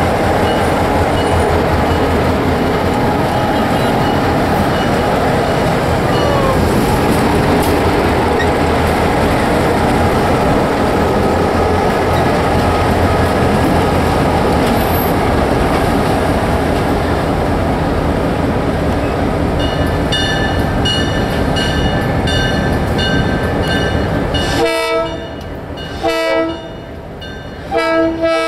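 Ferromex EMD diesel road-switcher locomotives rumbling past close by, their engines running steadily. From about twenty seconds in a locomotive bell rings at a steady beat of about two strokes a second, and near the end the horn sounds three short blasts.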